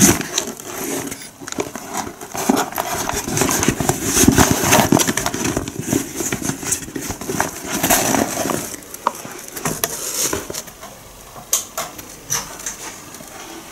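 Handling noise of a handlebar bag being turned over and opened: rustling and crinkling with many scattered clicks and knocks, busy for most of the time and then thinning out to occasional clicks near the end.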